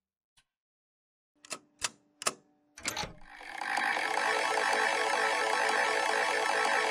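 A few sharp clicks, then a steady, fast mechanical clatter that comes in about three seconds in and keeps going.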